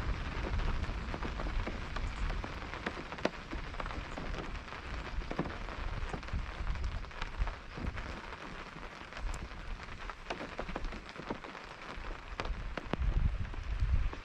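Rain pattering on a tent's fabric: a steady hiss with many separate drops ticking on the canvas. A low rumble underneath swells near the end.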